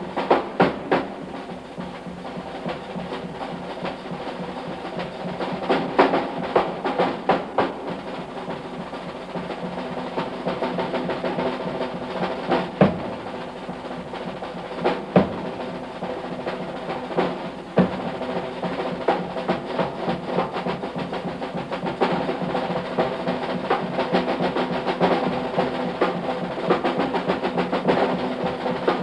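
Jazz drum kit solo: rapid strokes on snare and toms, punctuated by loud accented hits every few seconds.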